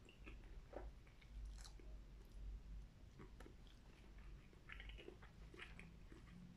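Faint chewing of a mouthful of chicken and rice, with scattered soft mouth clicks.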